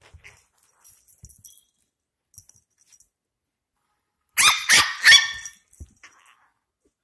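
Chihuahua puppy giving about three quick, high-pitched yaps about four and a half seconds in. Before that there are faint light clinks from its collar tag as it moves.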